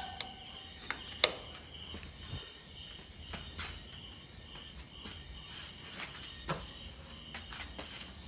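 Crickets chirping in a steady, pulsing trill, with one sharp knock about a second in and a few fainter clicks later.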